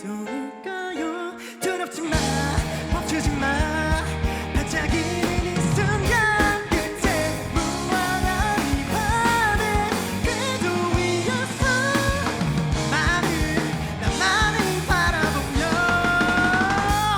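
A rock band playing a song with a lead vocal over guitar, bass and drums. It opens sparsely, and the full band comes in about two seconds in.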